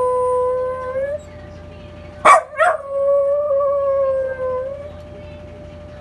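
Welsh Corgi-type dog howling: a long held howl that rises slightly as it breaks off about a second in, then after a short gap two sharp yelps leading into a second howl of about two seconds. A steady siren tone sounds faintly underneath; it is what sets off the howling.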